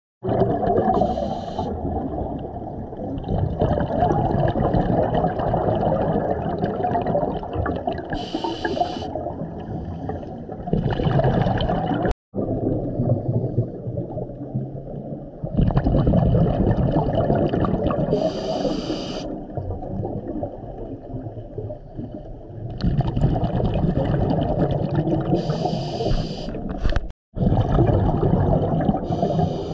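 A scuba diver breathing through a regulator underwater, heard several times: a short high hiss on each inhale, then a long, loud, low rush of exhaled bubbles.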